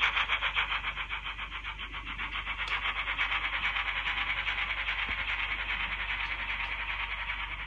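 Factory-fitted DCC sound decoder of a Dapol OO-gauge A1X Terrier 0-6-0 tank engine model, playing a rapid, even beat of steam-locomotive chuffs through its small onboard speaker. The chuffs grow quieter about two seconds in as the model runs away along the track.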